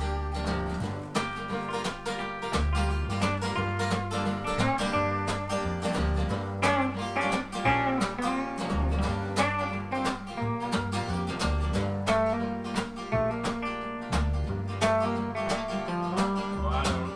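Live band playing: a strummed acoustic guitar, an electric guitar and a drum kit, with a harmonica played from a neck rack over the top. A moving bass line runs underneath.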